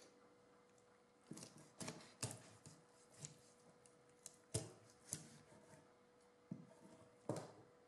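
Large kitchen knife cutting up a raw whole chicken on a wooden cutting board: irregular sharp cracks and knocks as the blade goes through the rib bones and strikes the board. The loudest come about two, four and a half and seven seconds in.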